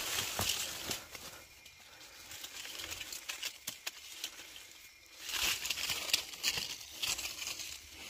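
Dry leaves rustling and crackling as they are pushed and trampled, with scattered small snaps of twigs. It comes in two spells, in the first second and again from about five seconds in.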